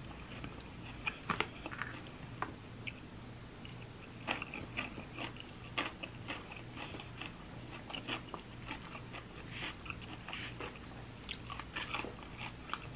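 Close-miked eating: chewing and crunching of a raw kale salad, with irregular crisp crunches and small clicks throughout.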